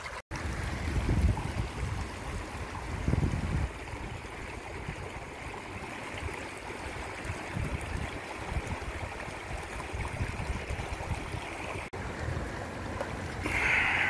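Shallow mountain stream running over rocks: a steady rush of water, with low gusts of wind on the microphone now and then and a short louder burst near the end.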